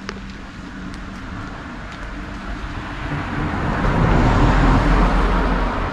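A car driving past on the road, its tyre and engine noise building to a peak about four to five seconds in and then fading away.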